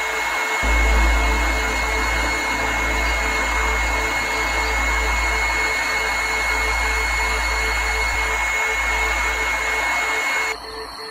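Steady loud hiss of static-like noise, with a thin high tone held through it and a low hum underneath. It cuts off near the end.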